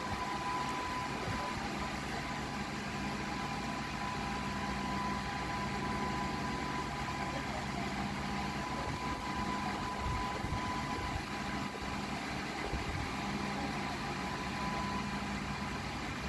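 A steady mechanical hum with a faint high tone running through it, like a fan or motor running.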